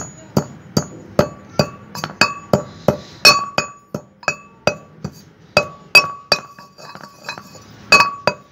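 Pestle pounding black peppercorns in a metal mortar, about two and a half strokes a second, each strike clinking with a brief metallic ring as the peppercorns are crushed to powder.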